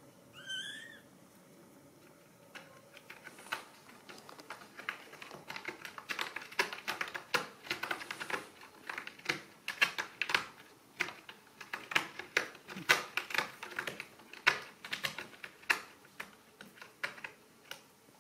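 A Ragdoll kitten gives one short mew about half a second in. Then a dense, irregular run of sharp clicks and scratches: kittens' claws scrabbling at a corrugated cardboard scratcher and the rug as they play.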